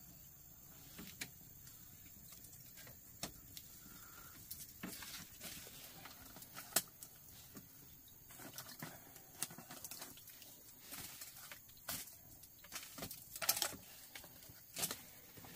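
Scattered light clicks and knocks of sticks and a small lidded pot being handled over an open wood fire, every second or two, a few louder ones near the end.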